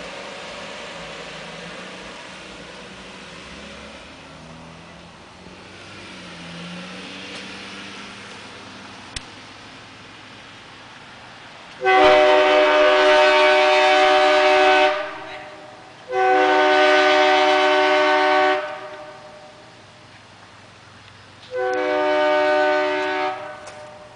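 A United Pacific aftermarket air train horn fitted to a car sounds three loud blasts of a multi-note chord, starting about halfway in. The first lasts about three seconds, the second about two and a half, and the last, shorter one under two seconds. Before the blasts there is only a low steady hum.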